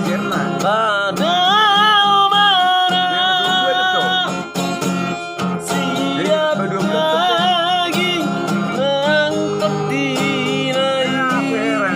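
A voice singing a slow song in long held notes with a wide vibrato, over acoustic guitar accompaniment.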